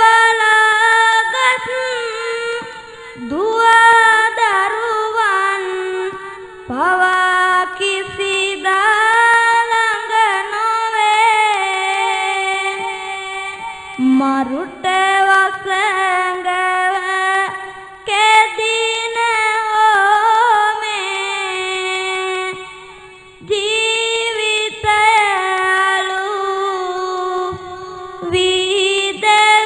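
A young boy's voice chanting Sinhala Buddhist verse (kavi bana) in a drawn-out sung melody, long wavering held notes in phrases of several seconds with short breaths between.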